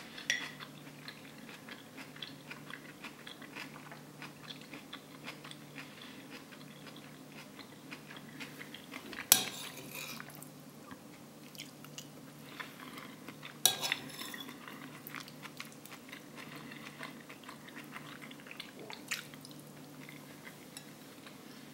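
A metal spoon scrapes and clinks against a plate while scooping curry and rice, with three sharp clinks about nine, fourteen and nineteen seconds in. Soft chewing is heard in between.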